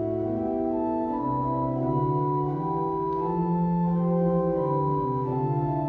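Church organ playing slow, held chords, with a low bass line stepping up and then back down beneath them.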